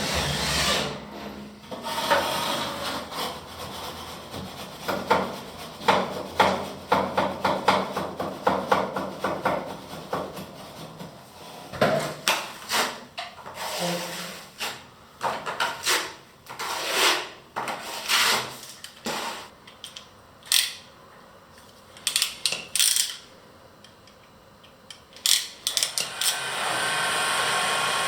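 Hand-tool work during renovation: a run of irregular scraping and rubbing strokes with knocks, and a low steady hum under the first half.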